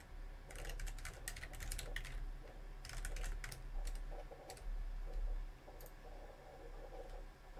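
Typing on a computer keyboard: two quick runs of key presses in the first few seconds, then a few separate clicks.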